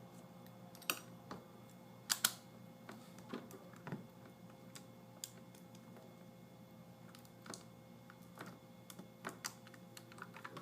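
Scattered light clicks and taps of a laptop's plastic and metal screen parts being handled and worked loose, with two sharper clicks about two seconds in, over a faint steady electrical hum.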